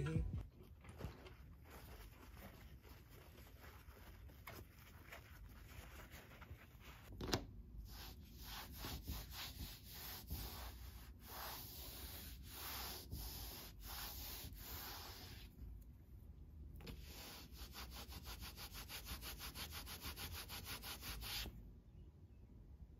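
A soft fleece cloth rubbing hard on a desktop in quick back-and-forth strokes, scrubbing at a mark stuck on the surface, with a short pause about two-thirds through. Before it, quiet handling noise and a single sharp knock about seven seconds in.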